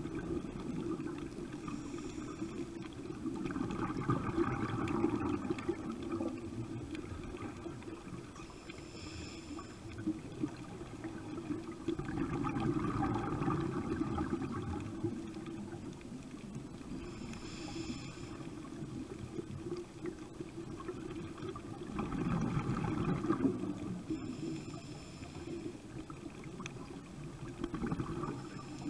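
Scuba diver breathing through a regulator underwater. A short high hiss with a faint whistling tone comes every eight to ten seconds, and each is followed by a longer rush of gurgling exhaled bubbles.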